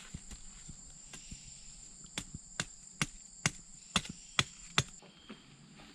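Machete chopping into green bamboo: about seven sharp strokes in quick succession, starting about two seconds in, over a steady high insect drone.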